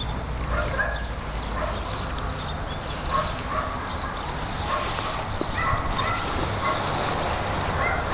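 Short animal calls scattered throughout, each brief and pitched, over a steady low rumble.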